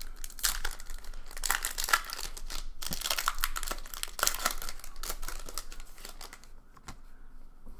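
A baseball card pack wrapper being torn open by hand and crinkled, a dense crackling that thins out near the end.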